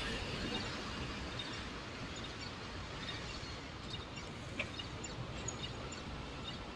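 City street ambience: a steady wash of traffic noise at an intersection, with faint short bird chirps scattered through it.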